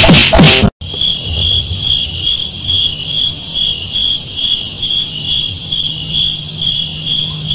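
Insect chirping steadily in a fast, even rhythm of about four chirps a second, over a low steady hum.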